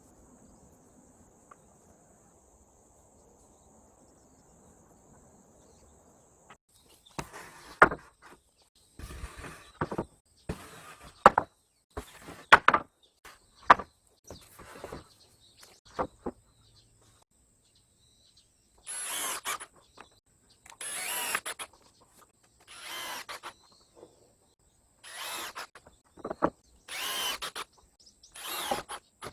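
Woodworking tools on the wooden swing: a string of sharp knocks and short scraping bursts starting about seven seconds in, then repeated bursts about a second long, every two seconds or so, near the end. Crickets chirp steadily throughout.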